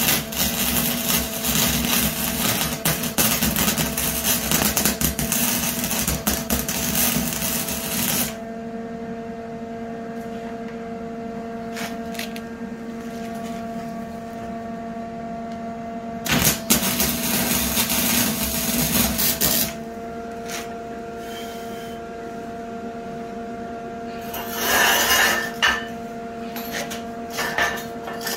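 Lincoln Electric welder's arc crackling and sizzling in two welds: one of about eight seconds at the start, another of about three seconds a little past halfway. A steady hum runs between the welds, and a brief scratchy noise comes near the end.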